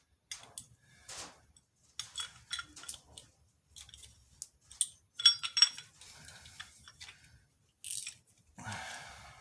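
Irregular light metallic clinks and jingles as a small pilot-bearing puller tool and the pilot bearing it has just drawn out are handled, with a short rustle near the end.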